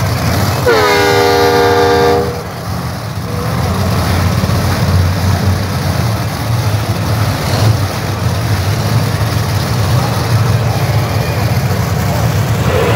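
Monster truck engines running with a steady low rumble, cut across near the start by one loud horn blast about a second and a half long.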